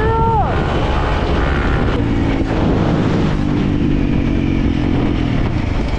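Motorcycle engine running under way, a steady low rumble with its note holding through the middle; most likely the Honda CRF300L dual-sport bike.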